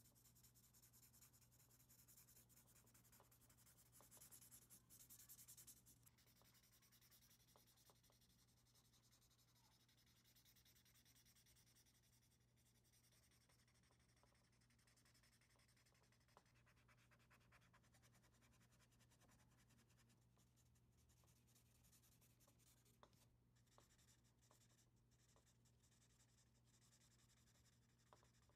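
Faint scratching of a felt-tip marker nib stroking across paper as an area is coloured in, a little louder about four to six seconds in, over a low steady hum.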